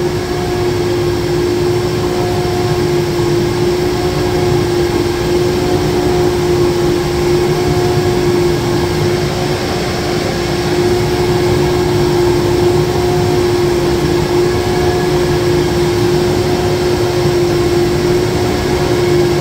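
PVC panel extrusion line machinery running: a loud, steady mechanical hum with one strong steady tone, and a fainter higher tone that comes and goes every couple of seconds.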